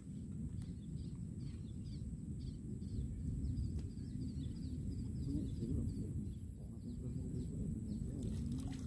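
Small birds chirping in short, high, downward-sliding notes, a few a second, until about six seconds in, over a steady low outdoor rumble.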